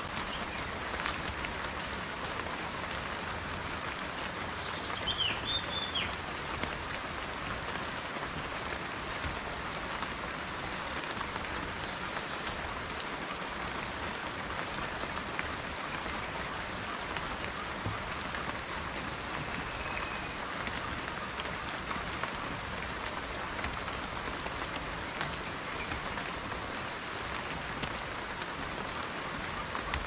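Steady rain falling and pattering on surfaces, an even hiss with scattered drop patter. A brief high chirp about five seconds in.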